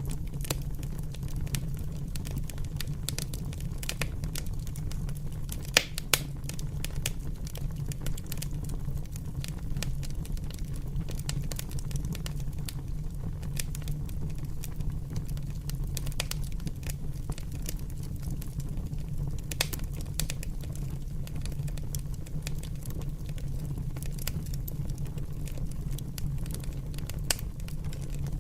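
Fire crackling: a constant patter of small snaps and pops over a steady low rumble, with a few louder pops along the way.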